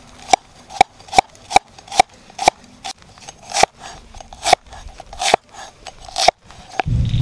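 A large knife chopping a red onion into slices on a round wooden chopping board: a run of sharp knocks, about two or three a second, as the blade cuts through and strikes the wood. Near the end the chopping stops and a steady low rumbling noise takes over.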